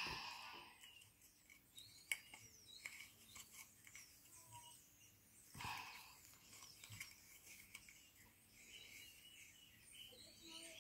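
Near silence: faint, scattered clicks and a soft rustle, with one slightly louder brush of noise about halfway through.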